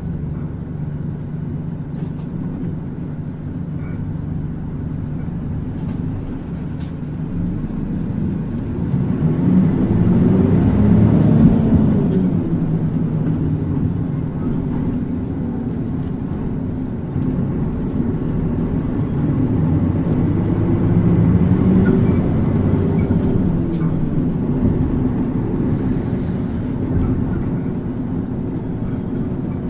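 Mitsubishi Fuso Aero Star (PKG-MP35UP) city bus heard from inside the passenger cabin, its diesel engine running as the bus drives. The engine note climbs and falls back twice, around ten and twenty seconds in, as the bus accelerates.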